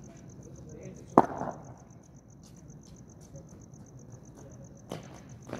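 A single sharp knock about a second in, the loudest sound, and two fainter knocks near the end, over the steady pulsing chirp of insects.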